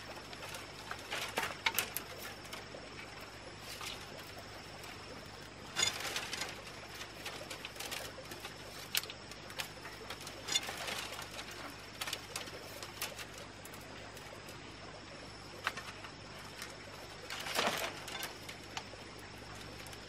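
Thin split-bamboo strips rustling and clicking against each other as they are woven by hand into a basket, in a few short crackling bursts several seconds apart.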